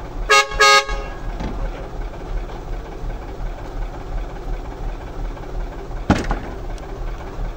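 Newly fitted truck horn sounding two short toots, a test of the new horn, over steady engine noise. A single sharp click comes about six seconds in.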